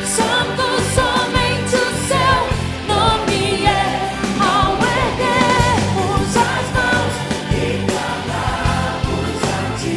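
Live Christian worship song: a full band plays under sustained melodic lines of singing with vibrato.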